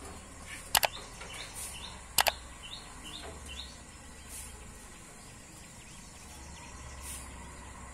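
Birds chirping: a run of short, rising chirps from about a second in to about three and a half seconds in. Two pairs of sharp clicks, just under a second in and about two seconds in, are the loudest sounds.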